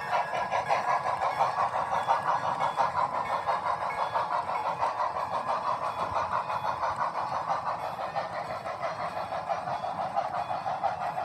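HO scale model train running past, a rapid, steady rhythmic clatter as its passenger cars roll along the track, easing off slightly toward the end.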